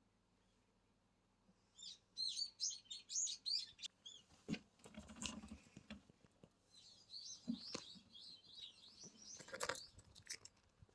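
A small bird chirping in two quick runs of short, high, repeated notes, with a few soft knocks and a rustle between them and a sharp click near the end.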